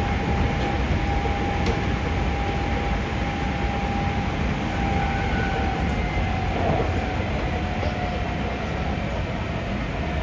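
Resistance-controlled Hankyu 5300 series electric train running, heard from inside the passenger car: a steady rumble of wheels on rail with a single whine that slowly drops in pitch.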